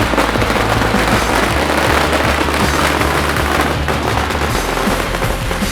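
Rapid crackling of fireworks and firecrackers, dense and continuous, mixed with rock music that has a steady, shifting bass line.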